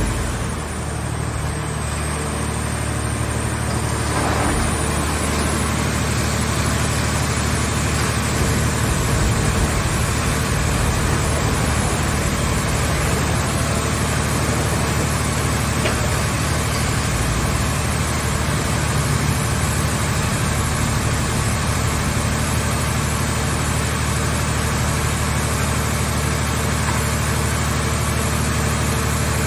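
Car shell scrap baler running, a steady engine-like hum with a strong low drone that swells slightly a few seconds in and then holds even.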